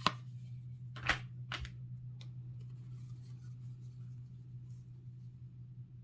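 Hands handling a trading-card starter deck: a few short rustles and taps in the first couple of seconds, the loudest about a second in, over a steady low hum.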